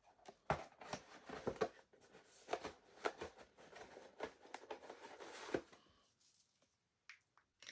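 Toy blind-box packaging being handled and torn open: a busy run of rustles, rips and small clicks that stops about two seconds before the end.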